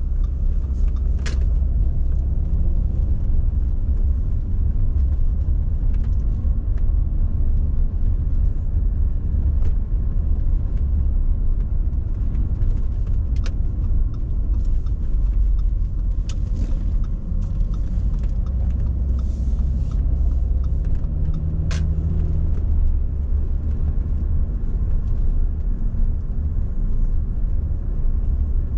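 2008 Audi A6 C6 with its 2.4-litre naturally aspirated petrol V6, heard from inside the cabin while driving: a steady low engine and road rumble. A few short, sharp clicks come through it: about a second in, near the middle, and about three-quarters of the way through.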